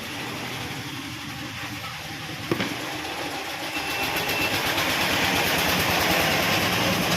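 A motor running with a steady rushing noise that grows louder about halfway through, and a single sharp knock a little before that.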